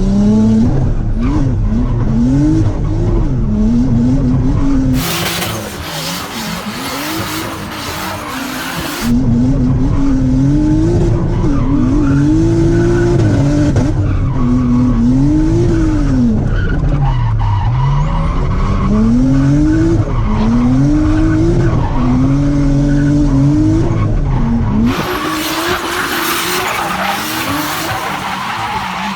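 Nissan Laurel's engine revving up and down again and again under throttle while the car drifts. Twice, about five seconds in and near the end, a loud hiss of tyre and rushing noise takes over for a few seconds.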